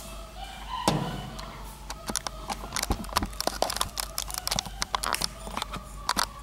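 A chimpanzee's hands fumbling at the camera right against the microphone. There is one hard knock about a second in, then a quick, irregular run of clicks, taps and scrapes.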